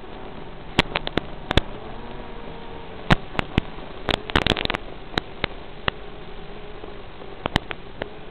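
Hiss of an analog FPV video link's audio with a faint wavering tone, broken by sharp crackling pops, thickest about four seconds in and again near the end, as the radio signal breaks up.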